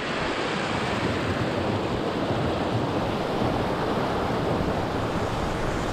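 Mountain stream rushing steadily down a rocky cascade, heard close up.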